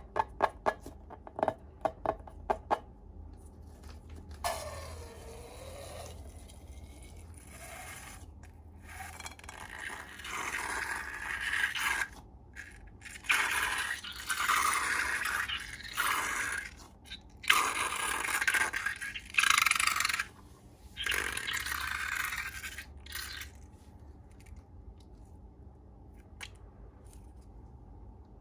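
Slime-making ASMR: a quick run of sharp clicks, then repeated bursts of scraping and stirring as the slime is worked in its container, quietening near the end.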